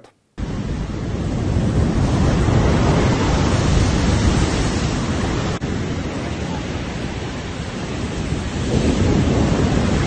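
Heavy storm surf breaking on the shore: a dense rushing noise that starts abruptly about half a second in, builds over a few seconds, eases and swells again near the end, with wind rumbling on the phone's microphone.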